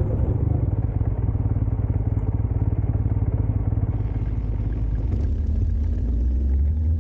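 ATV engine running while being ridden, a fast, steady low-pitched pulsing.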